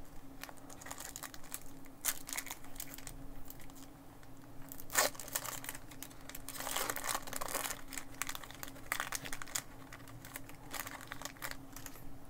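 Foil Pokémon booster pack wrappers and blister packaging crinkling and tearing as packs are opened, in irregular crackles with a sharp crackle about five seconds in and a busier stretch of crinkling soon after.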